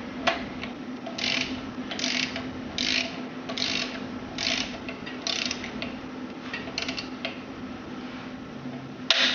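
Ratcheting torque wrench with a half-inch socket tightening a cylinder head bolt on a small block Ford 302, in short ratchet strokes a little under one a second, with a louder burst near the end. The bolt is being brought up to 70 foot-pounds as part of the head bolt torque sequence.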